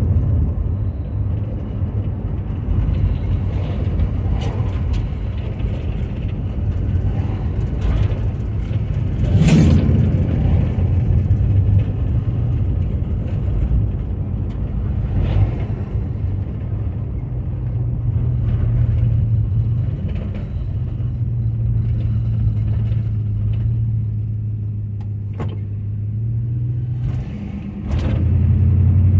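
Car engine running steadily with tyre and road noise, heard from inside the cabin of an older car while driving. A few sharp knocks cut through, the loudest about a third of the way in, and the engine dips then picks up near the end.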